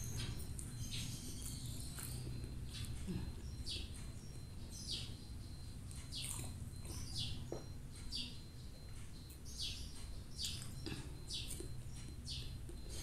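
Small birds chirping in the background: short, high, slightly falling chirps repeat every half second to a second, over a steady low hum.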